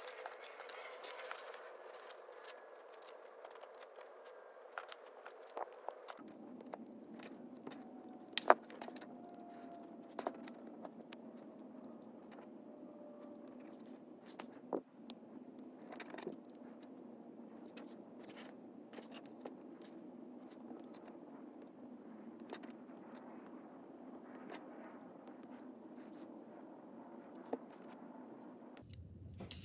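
Small plastic building bricks clicking and rattling as they are handled and pressed together onto a red brick model, with a sharp click about eight and a half seconds in.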